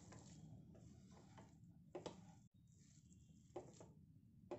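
Near silence, with faint squishing of a hand mixing a moist noodle, vegetable and flour mixture in a pan, and a few soft ticks.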